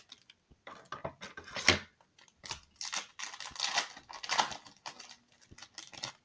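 Plastic packaging of small toy figures being handled and opened, crinkling and rustling in irregular bursts, loudest about a couple of seconds in.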